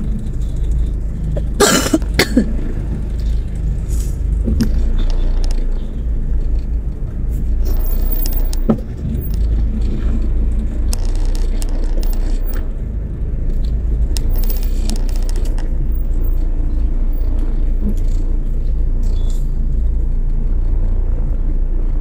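Steady low rumble inside a moving Toyota car's cabin at low speed. A brief sharp noise comes about two seconds in, with a few faint clicks later.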